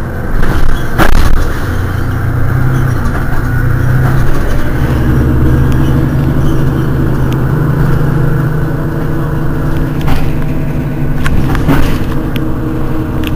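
Mercedes-Benz Citaro city bus engine idling steadily with a low hum that swells slightly partway through. A few sharp clicks come about a second in and again near the end.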